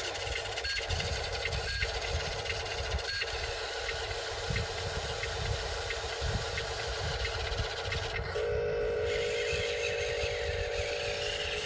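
Small electric motors and gearing of a radio-controlled construction model running with a steady whine and faint regular ticking; a second, louder motor whine joins about eight seconds in.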